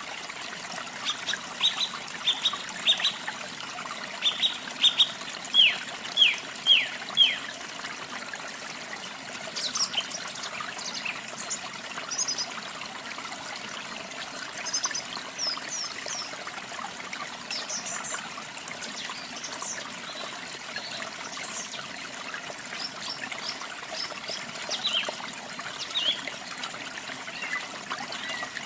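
Water running and trickling steadily, with small songbirds chirping over it. A run of quick, falling chirps in the first seven seconds grows louder toward its end, then higher chirps come scattered through the rest.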